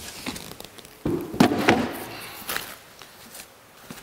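Handling knocks and thumps as a Lincoln Power MIG 210MP welder is lifted out of its cardboard box and set on a steel workbench, the loudest a second or two in, then the rustle of its plastic bag being pulled back.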